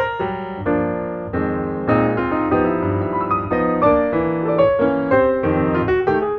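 Background piano music, notes and chords played in a quick, steady run.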